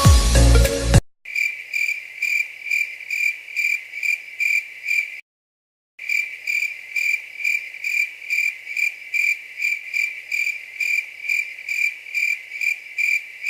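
Cricket chirping in a steady, even trill that pulses about two and a half times a second, with a short break about five seconds in.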